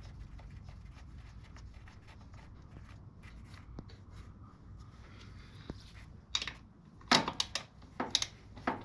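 Faint handling noise while the engine-oil drain plug is threaded in by hand. From about six seconds in, a run of sharp clicks follows from a socket ratchet tightening the plug.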